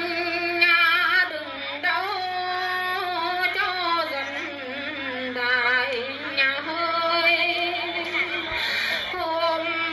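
A single voice singing a festive song, with long held notes that waver in vibrato and slide between pitches.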